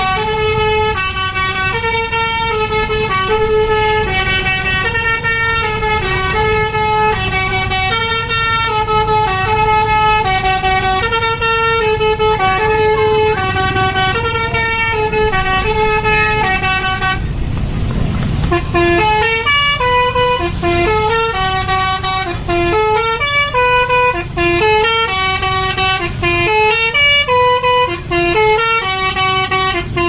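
Tour bus's 'basuri' musical telolet horn playing a tune of stepped, changing notes. The tune breaks off for about two seconds a little past the middle, where a low rumble comes through, then starts again.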